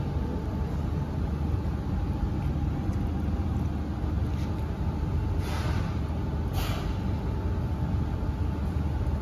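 Steady low rumble of restaurant room noise, with two short hisses a little past halfway.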